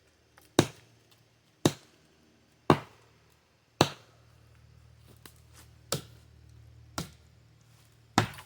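An Ozark Trail hatchet chopping into a tree trunk: seven sharp strikes about a second apart, with a longer pause after the fourth. The dull edge bites but does not sink into the wood.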